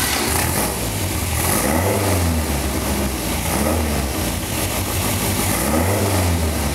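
Ford Crossflow inline-four engine of a Stuart Taylor kit car running just after a cold start, its revs rising and falling several times as the throttle is blipped.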